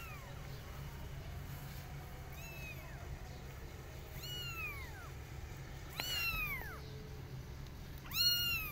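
Young kittens meowing: about four high, thin cries a couple of seconds apart, each rising briefly then falling in pitch, the last one near the end the loudest. They are the calls of kittens left alone and calling for their mother cat.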